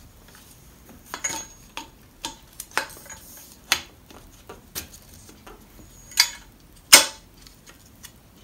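Hard plastic lawnmower handle fixing blocks clicking and knocking against the handle tube and each other as they are handled and slid into place. About a dozen irregular sharp clicks, the loudest two near the end.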